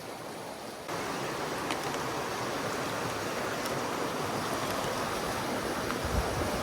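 Mountain stream water rushing steadily over rocks. It gets suddenly louder about a second in. There is a brief low thump near the end.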